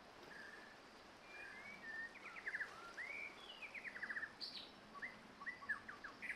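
Wild birds singing over a faint steady background hiss: a short level whistle repeated a couple of times, then from about a second and a half in a run of chirps, upward-sweeping whistles and quick rattling trills.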